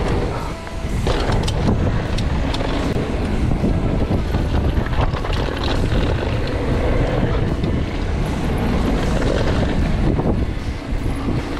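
Wind buffeting the camera microphone while a mountain bike rolls fast over hard-packed dirt, its knobby tyres running on the trail, with short knocks and rattles from the bike over bumps.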